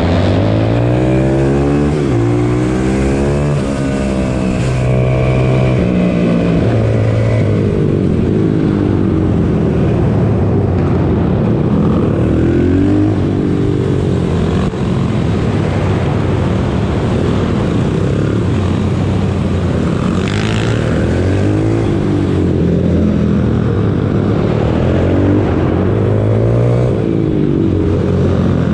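Pit bike engine revving hard, its pitch climbing and dropping again and again as the bike laps the track.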